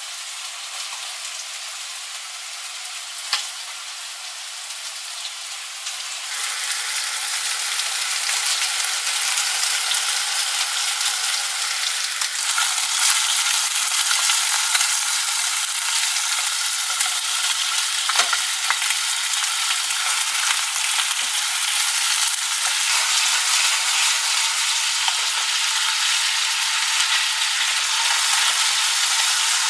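Food sizzling as it fries in a pan. The sizzle grows louder about six seconds in and again near the middle, with a few light clicks.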